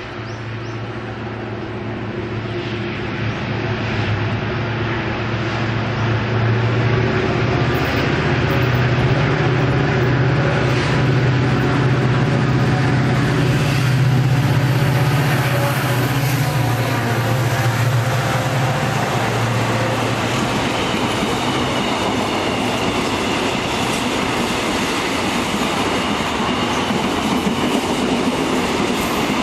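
A Korail 7400-class diesel locomotive approaches and passes, its engine a steady low drone that grows louder as it nears. After about twenty seconds the drone fades, leaving the rumble and clatter of container flatcar wheels rolling over the rails.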